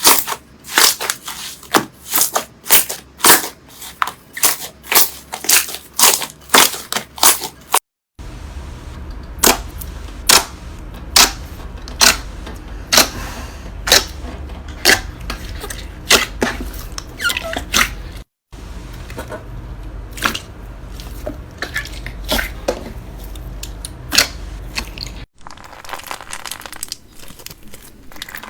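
Slime being squeezed and pressed by hand, giving sharp clicking and popping sounds about two to three times a second. The sound is broken by brief dead silences three times, and after the first of them a low steady hum runs underneath.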